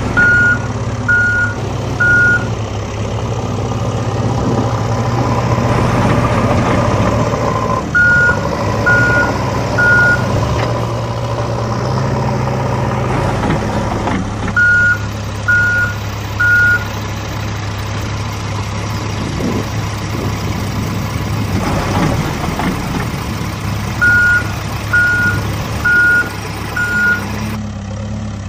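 Heavy-vehicle engine running steadily, with a reversing alarm beeping in short runs of three or four, about one beep a second.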